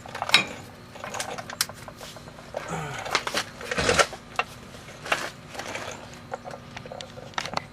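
Irregular clicks and clinks of steel-backed brake pads being handled and fitted into the brake caliper bracket, busiest about three to four seconds in.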